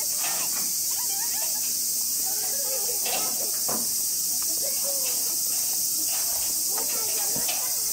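Steady, high-pitched drone of a summer insect chorus, unbroken throughout. Faint talk and a couple of short knocks sit beneath it.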